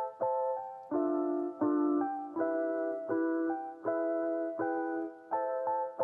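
Background music: soft keyboard chords, in the manner of an electric piano, struck again about every three-quarters of a second.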